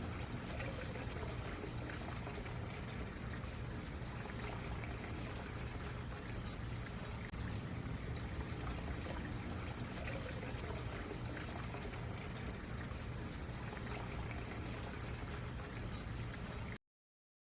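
A small stream running and trickling steadily over stones; it cuts off suddenly near the end.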